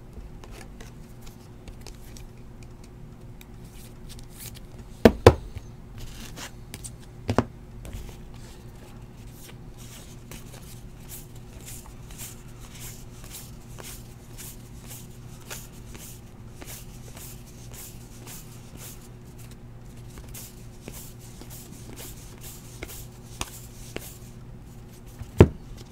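Stack of 2018 Topps Heritage baseball cards being flicked off one at a time and sorted between the hands: a quick run of light card snaps and slides, several a second. A few louder knocks come about five and seven seconds in and again near the end, over a steady low hum.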